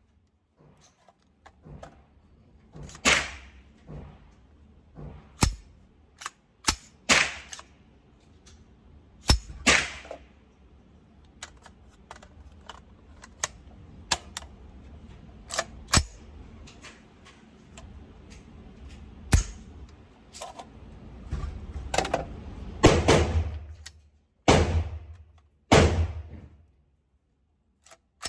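Gunshots from a 7.62x39 AR pistol, fired singly at uneven intervals, with loud reports mixed among fainter ones.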